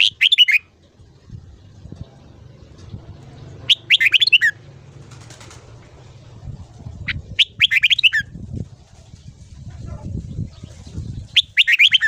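Red-whiskered bulbul singing four short phrases of quick notes, about four seconds apart, over a low background rumble.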